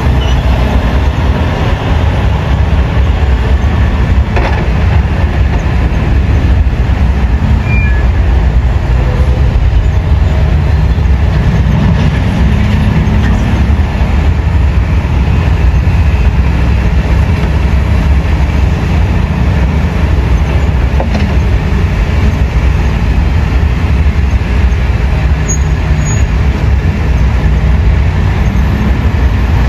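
Diesel engines of a Hitachi excavator and a Komatsu 380 wheel loader working, a loud, steady low rumble with the engine note swelling a couple of times.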